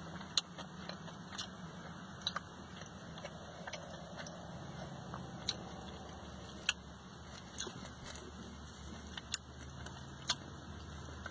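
Clear plastic wrap on a packaged sub sandwich crinkling in short, scattered crackles as it is pulled back, over a steady low hum inside a car.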